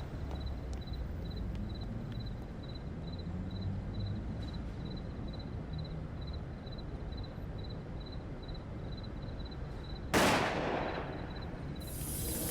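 Low steady rumble with a faint, regular high tick or beep about twice a second. About ten seconds in there is a sudden loud bang whose ring fades over about a second, and a high hiss swells just before the end.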